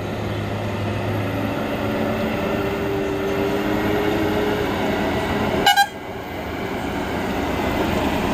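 Loaded Ashok Leyland lorry's diesel engine running steadily as the truck moves slowly round a hairpin bend, with a vehicle horn giving two quick toots about six seconds in.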